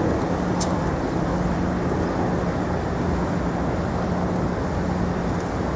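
Steady city street noise of passing traffic, with a constant low hum underneath.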